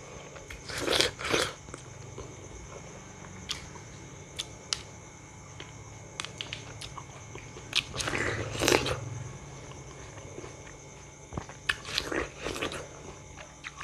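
Crunchy bites into raw fruit, with chewing between. The loudest bites come about a second in, around eight seconds in and near the end, with small wet clicks in between.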